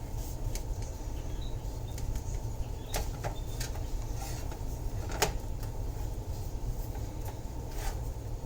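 A spoon spreading cream cheese over a flour tortilla: faint scraping with a few light clicks, the sharpest a little past the middle, over a steady low hum.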